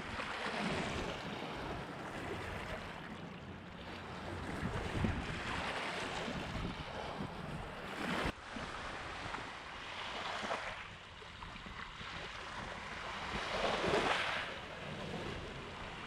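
Small lake waves washing up and drawing back over a cobble and pebble beach, each wave a rushing swell every few seconds, with wind rumbling on the microphone. The sound changes abruptly a little past halfway, at a cut in the recording.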